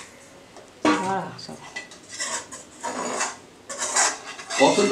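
A metal spoon scraping and clanking against aluminium and iron cooking pots: one sharp clank about a second in, then several scrapes and knocks.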